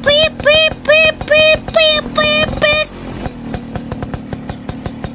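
Toy Vespa-style ride-on scooter's electronic horn beeping about seven times in quick succession. Each beep is short and bends up in pitch at its start. After the beeps, a fast, regular clicking continues at about five clicks a second.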